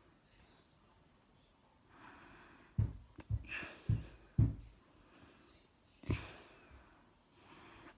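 A person breathing close to a phone's microphone, with short sharp puffs of breath: a cluster of four between about three and four and a half seconds in, and another near six seconds.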